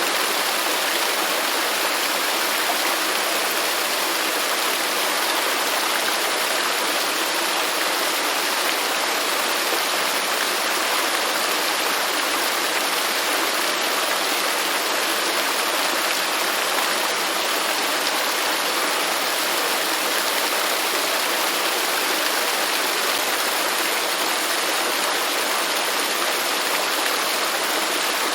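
Waterfall: a steady, unbroken rush of falling water, an even hiss with little deep rumble.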